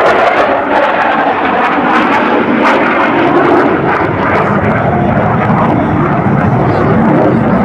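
Loud, steady jet roar from an F-15E Strike Eagle's twin turbofan engines as the fighter flies past. The roar deepens in the second half as the jet pulls away.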